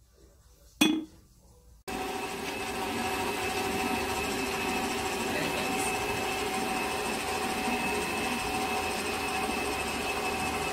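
A sharp click about a second in, then the HOWORK SM-1510 stand mixer's motor cuts in abruptly and runs at a steady speed with a steady whine.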